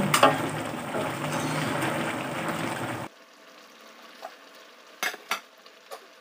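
Vegetables sizzling in a metal wok as they are stirred with a wooden spoon. About three seconds in, the sizzle cuts off suddenly, leaving a faint background with a few light knocks, two of them close together.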